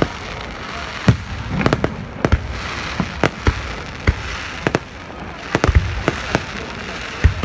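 Aerial fireworks going off: about a dozen sharp bangs of bursting shells at irregular intervals over a steady crackle.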